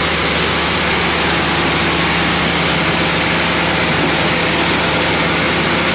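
An engine running steadily and loudly, a constant hum under a dense wash of mechanical noise with no change in speed.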